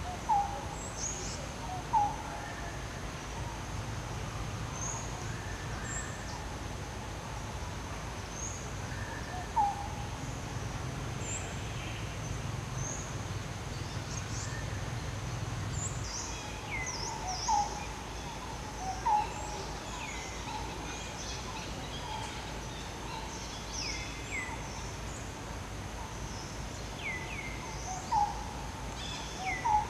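Outdoor ambience: short chirping calls that fall in pitch come at irregular intervals, a few of them louder, over a steady high-pitched hum.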